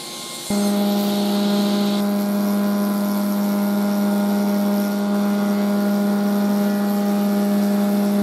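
Stationary woodworking machine with a rotating cutter running, a loud steady hum and whine built on one strong low tone with overtones. It starts abruptly about half a second in, after a quieter stretch from a sliding-table panel saw.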